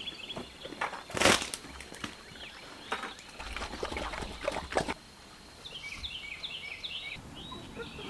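A loud clatter about a second in as feed is tipped from a plastic bucket into a pig pen, then pigs eating with scattered knocks and crunching. Birds chirp in quick repeated notes near the end.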